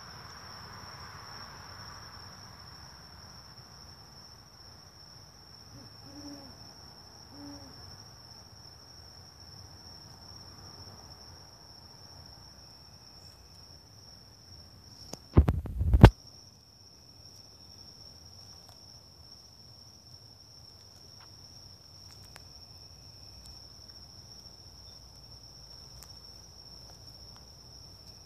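Great horned owl hooting faintly, two low hoots about six and seven and a half seconds in, over a steady high-pitched insect trill. About halfway through, two loud bumps in quick succession are the loudest sound.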